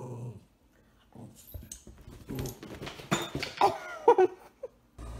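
Dog growling low at the start, then scuffling and short high-pitched cries that bend in pitch about three to four seconds in.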